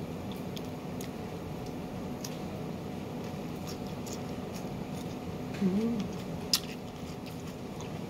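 A person biting and chewing crisp raw red bell pepper, with small crunching clicks over a steady low hum. A short hummed 'mm' comes about two-thirds of the way in, then a single sharp click.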